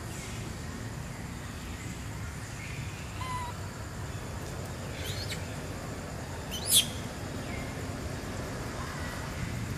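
Outdoor forest ambience: a steady low rumble with a few faint chirps, and one short, sharp high-pitched squeak about seven seconds in.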